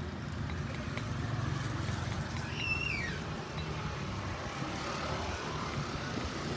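Car engine idling steadily, with one brief high chirp that falls in pitch about two and a half seconds in.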